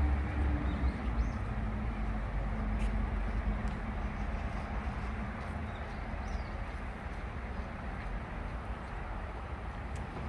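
Outdoor city ambience: a steady rumble of traffic. A vehicle engine's hum fades away in the first couple of seconds, and faint bird chirps come through now and then.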